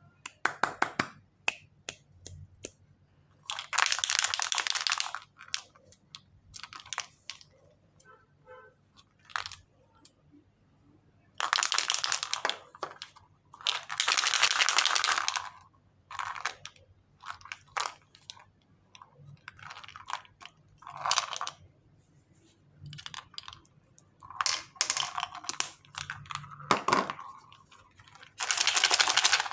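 Plastic wrapping crinkling and tearing as packets are opened by hand, in irregular bursts of one to two seconds with short clicks between them.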